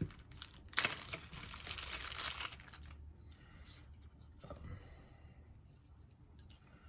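Packaging crinkling and rustling as a stainless steel alcohol stove is unwrapped, most dense for a couple of seconds about a second in, then fainter rustles and small clicks.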